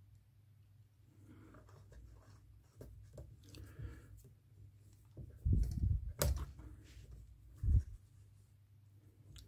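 Hand handling of a watchmaker's lathe's tailstock: soft rubbing and small metallic clicks as it is slid and set on the bed, over a low steady hum. A few dull thumps come about halfway through and another a little later.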